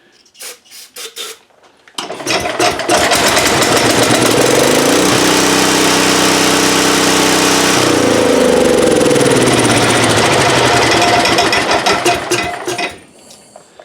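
A few short clicks, then a small single-cylinder engine catches on a shot of 'happy gas' and runs for about ten seconds, its speed shifting, before it sputters and dies as that fuel runs out. This is a crank-no-start with no fuel getting through the carburetor.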